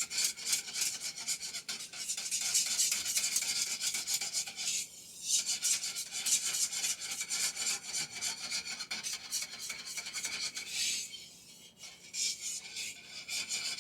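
A utensil stirring sauce in a wok, scraping around the pan in quick, continuous strokes while the sauce heats and thickens. There are short pauses about five seconds in and again about eleven seconds in.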